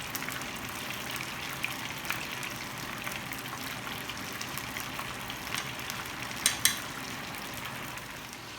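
Chicken wing drumettes deep-frying in very hot oil: a steady sizzle with scattered crackles, and two sharper pops about six and a half seconds in.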